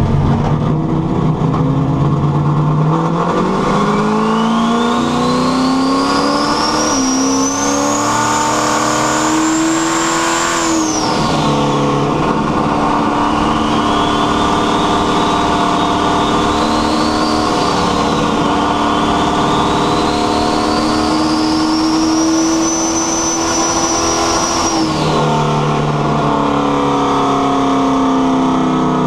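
Carbureted rear-mount turbo car accelerating hard under boost: the engine pulls up through the revs while a rising turbo whistle climbs over it. The revs drop back about eleven seconds in, then a second long pull builds with the turbo whistle climbing again, and near the end the revs fall away.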